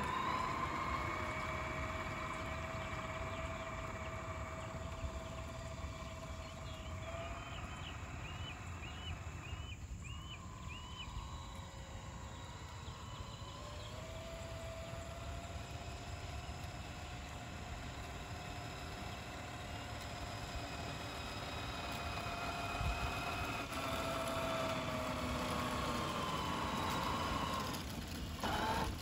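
Whine of a 1/14-scale Tamiya RC semi truck's electric motor and gearbox as it drives towing a boat trailer on wet pavement, the pitch slowly rising and falling with its speed. A run of short chirps comes about a third of the way in.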